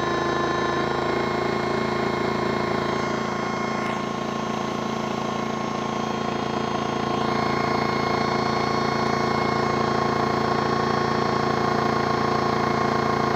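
Small electric motor of a modified Miele W1 toy washing machine running its drum at spin speed: a steady whine of several tones at an even pitch.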